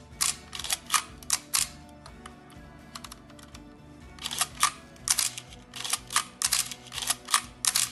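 Nikon F2 film camera's mechanical shutter fired over and over, a quick run of sharp clicks with a pause of about two seconds in the middle: the shutter being tested and working. Background music plays underneath.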